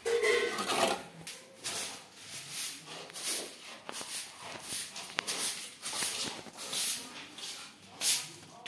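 A series of short, hissy scraping noises, repeating irregularly about one or two times a second.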